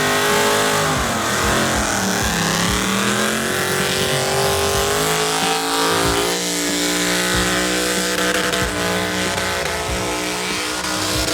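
Car engine held at high revs during a burnout, with tire noise under it. The revs dip and climb in the first few seconds, then hold fairly steady.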